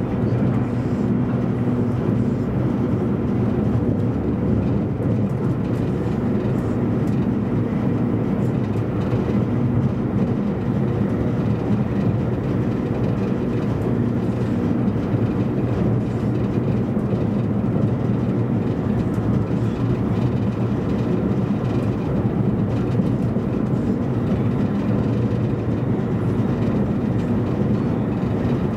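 Cabin noise inside an E257 series 500 electric limited-express train running at speed: a steady rumble of wheels on rails with a low hum underneath.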